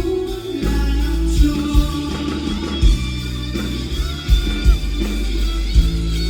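Live rock band playing through the festival PA: guitar over a steady bass line, with kick drum hits every second or so.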